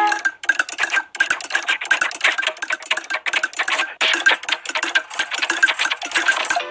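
Rapid, irregular mechanical clattering, many clicks and rattles a second, with a faint steady high tone running through it; an old cartoon sound effect.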